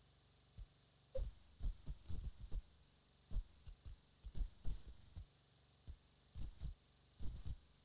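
Wind gusts buffeting an outdoor nest-camera microphone, making irregular low thumps over a faint steady hiss.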